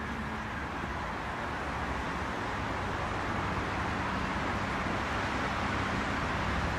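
A steady rushing noise that grows slowly louder, with a low steady hum beneath it.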